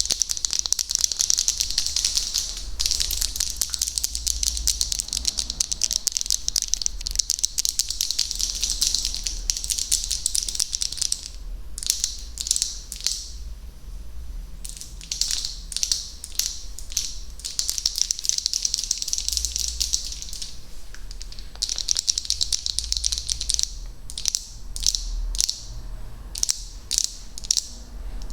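Close-miked ASMR trigger sounds: dense, rapid crackling clicks in long stretches, broken by runs of separate clicks.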